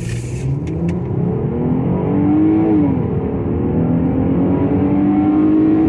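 2019 Jeep Cherokee Trailhawk's 3.2-litre V6 at full throttle in a 0–60 launch, heard inside the cabin: the engine note climbs, drops with an upshift a little under three seconds in, then climbs again over steady road noise.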